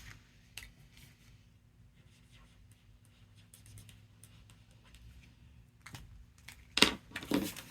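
Faint scratching and rustling of paper being handled at a table, with a few sharp taps near the end.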